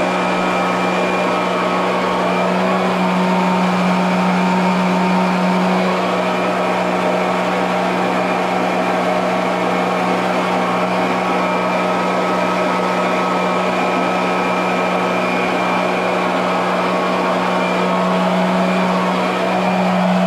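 Electric motor running steadily at constant speed: a strong, even hum with a fainter whine above it.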